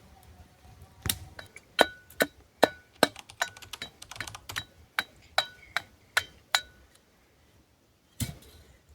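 A quick, irregular series of sharp clicks or knocks, about fifteen over five or six seconds, many with a brief ringing tone, then one more knock near the end.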